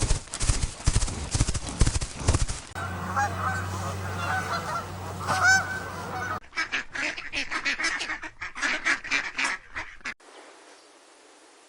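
Geese honking in a few short clips spliced one after another. The calls stop about ten seconds in, leaving only faint hiss.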